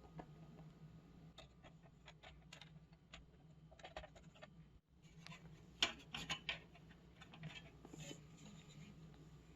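Faint clicks and scrapes of hardware being handled as a graphics card is fitted into a PC case's expansion slot. The sharpest cluster of clicks comes about six seconds in.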